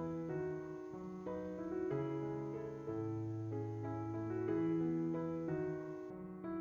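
Background piano music: slow, with held chords changing every second or so over a low bass line.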